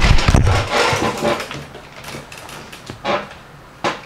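Camera handling noise as the camera is grabbed and turned: a loud rubbing rumble at first, then faint knocks and clicks, two sharper clicks about three and four seconds in.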